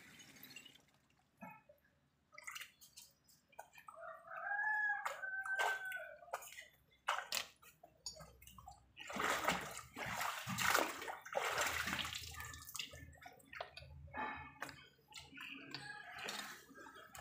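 Water splashing and pouring in irregular bursts, heaviest about halfway through. A short pitched, whistle-like sound comes about four seconds in.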